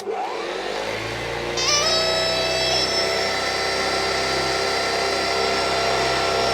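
Hoover Junior upright vacuum cleaner's 300-watt motor switched on, spinning up with a rising whine over about two seconds, then running at full speed with a steady whine and rush of air.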